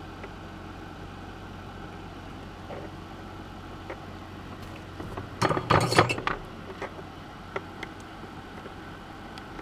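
Small clinks and taps of tools and electronic components being handled on a workbench during circuit-board assembly. A cluster of clatter comes about five to six seconds in, then a few light ticks, over a low steady hum.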